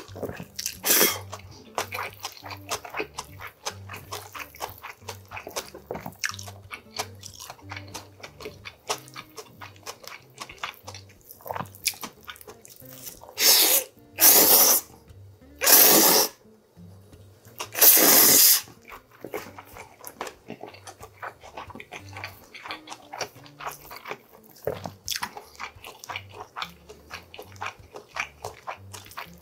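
Close-miked eating of cold spicy Korean mixed noodles (bibim-myeon) with grilled pork neck: steady wet chewing clicks, a short slurp about a second in, and four loud noodle slurps in quick succession around the middle.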